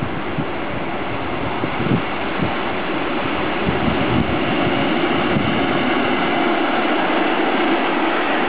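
Freight train hauled by a DB Class 185 electric locomotive passing close by, the rolling noise of its wheels on the rails growing slightly louder as the locomotive and then the covered goods wagons go past.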